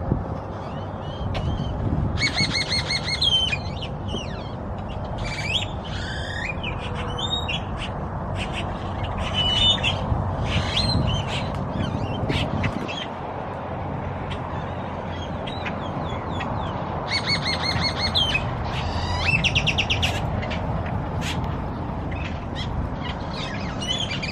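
Birds squeaking and chattering in clusters of shrill, sliding and rattling calls that come and go in bursts, over a steady low background rumble.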